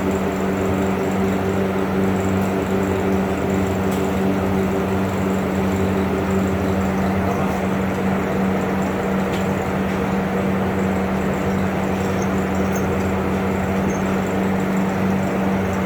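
Steady machine hum with an even low drone that does not change.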